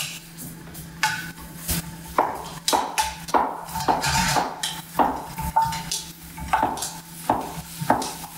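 Wooden spatula stirring onions sweating in a stainless steel sauté pan, scraping and knocking against the metal about twice a second, each knock with a short metallic ring.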